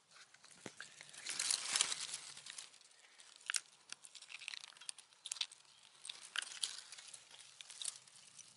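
Dry leaves and pine needles rustling and crackling as they are disturbed at close range, a dense run of crackles about a second in, then scattered crackles and ticks.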